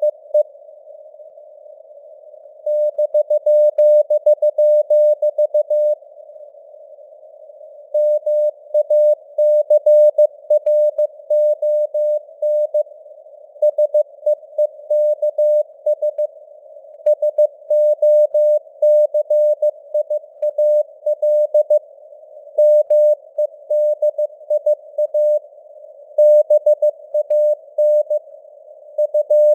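Morse code (CW) sent at 15 words per minute: a single mid-pitched tone keyed on and off in dots and dashes, with longer gaps between words, over a narrow band of simulated radio hiss.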